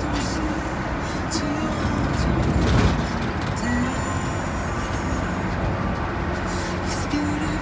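Steady road and engine rumble heard inside a moving car's cabin, swelling briefly about three seconds in, with faint background music.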